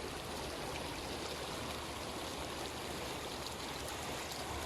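Floodwater flowing and rushing steadily, an even continuous wash of water noise.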